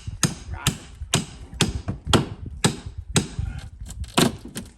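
Hammer blows on wooden framing, about nine evenly spaced strikes at roughly two a second, each with a short ring.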